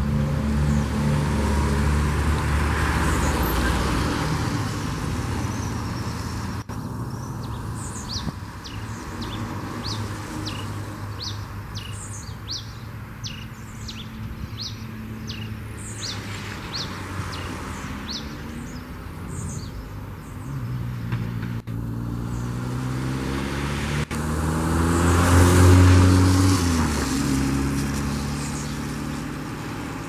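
Red pileated finch (tico-tico-rei) calling a run of short, sharp high notes, several a second, over the running of passing motor vehicles. The loudest vehicle goes by near the end, its engine pitch falling as it passes.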